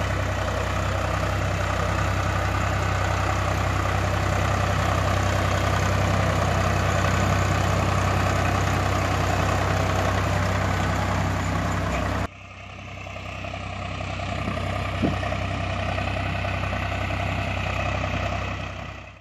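Tractor engine running steadily with a low, even chugging hum. About twelve seconds in it cuts to a quieter take that builds back up, then fades out near the end.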